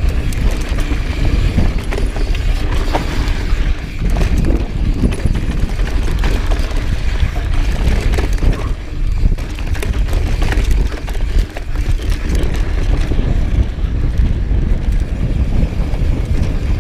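A Rocky Mountain Instinct mountain bike descending a loose, rocky downhill trail at speed. Wind rumbles steadily on the camera microphone, tyres crunch over dirt and rock, and the bike rattles with many sharp clicks and knocks.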